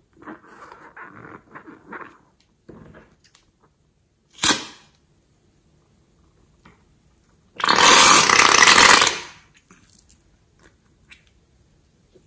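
A liquid-filled rubber balloon is squeezed over a bowl of slime. Soft rubbery handling sounds come first, then one sharp snap at about four and a half seconds. Near eight seconds there is a loud rushing spurt of about a second and a half as the balloon's contents are forced out into the slime.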